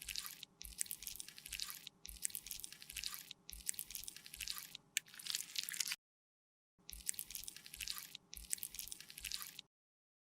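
Soft, wet squishing and crackling as makeup is worked, in repeated strokes about a second and a half long. The sound cuts to silence twice, briefly, at about six seconds and just before the end.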